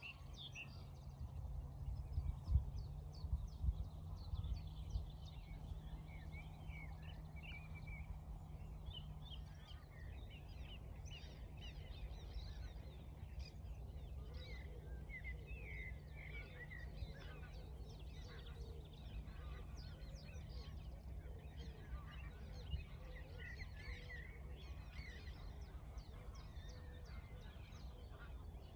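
Outdoor ambience: many birds calling in short, scattered chirps, over a steady low rumble.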